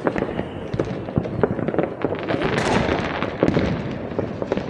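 Fireworks going off: a dense run of sharp pops and crackles, thickest between about two and a half and three and a half seconds in.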